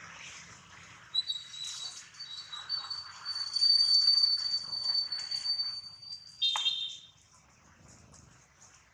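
A high, thin whistling animal call held steady for about five seconds, with a second tone just beneath it, ending in a quick downward sweep; after it only a faint background hiss remains.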